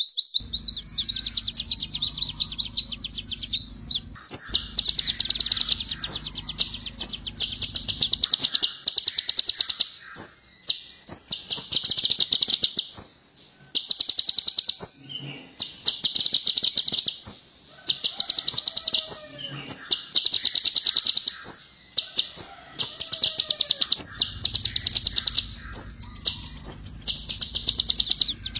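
Kolibri ninja (van Hasselt's sunbird) singing: rapid, high-pitched chattering trills in long bursts broken by short pauses. A low hum sits underneath for the first several seconds and again near the end.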